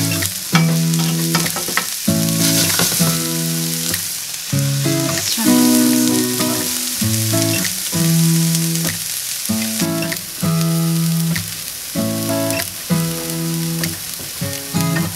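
Diced white onion sizzling in olive oil in a nonstick skillet, with a wooden spatula stirring and scraping near the start. Background music with a slow run of held notes plays over it.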